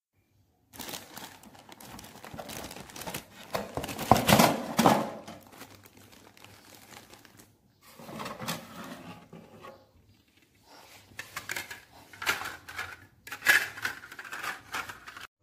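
Plastic wrapping crinkling and rustling in irregular bursts as a mini ceiling fan's parts are handled and unpacked, with the loudest handling about four seconds in and brief pauses between.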